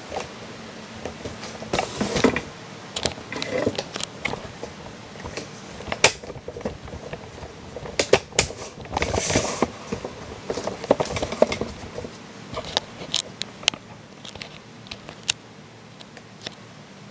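Irregular rustling, crinkling and sharp clicks of plastic cling wrap and painter's masking tape being handled on a model airplane fuselage, coming in short bunches with pauses between.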